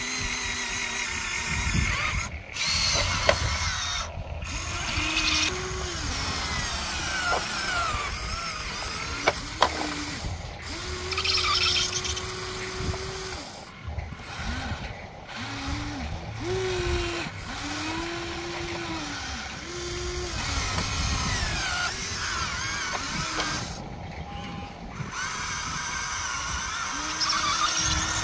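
Electric motors of a Huina RC toy excavator whining in short spells as the boom, arm and bucket move, each spell rising in pitch, holding, then falling away. A few sharp clicks come in between.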